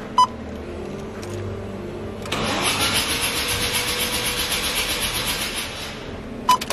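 Starter motor cranking the Mazda RX-7 FD3S's 13B rotary engine for about three and a half seconds without it firing, a steady pulsing churn with a rising whine as the starter spins up. The fuel-injection fuse is pulled, so the cranking is clearing fuel out of a flooded engine with wet plugs. A short electronic beep sounds near the start and again near the end.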